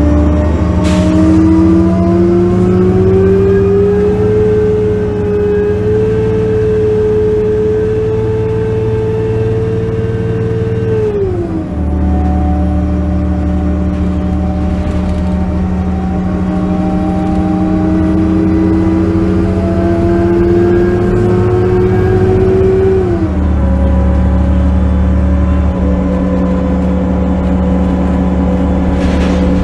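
A 2005 New Flyer C40LF compressed natural gas city bus driving, heard from inside the passenger cabin: a steady low drone with a drivetrain whine over it. The whine climbs in pitch as the bus gathers speed, falls sharply about eleven seconds in, climbs slowly again and falls once more near the end.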